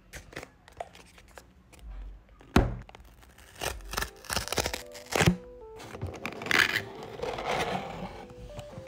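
Cardboard shipping box handled: knocks and scrapes as it is set down and gripped, then the perforated tear strip ripping along its side, over soft lofi background music.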